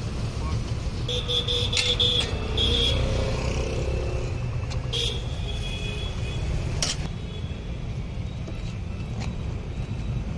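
Street traffic noise: a steady low rumble, with a vehicle horn tooting briefly about a second in and again around five seconds, and a few sharp clicks.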